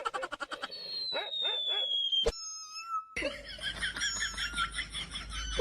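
Laughter in quick repeated bursts, broken in the middle by a falling whistle-like tone and a sharp click.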